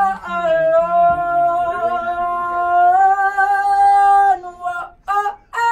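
A voice singing a long held note without words, stepping up in pitch about three seconds in and holding again, then a few short sung notes near the end.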